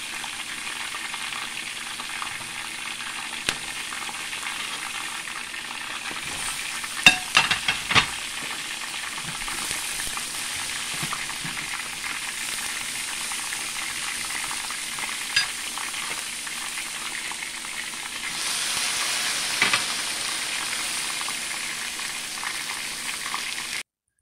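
Shrimp and vegetables sizzling in a stainless steel frying pan, a steady frying hiss that grows louder about eighteen seconds in. A spatula stirs and scrapes the pan, with a few sharp clinks against the metal, most of them about seven to eight seconds in.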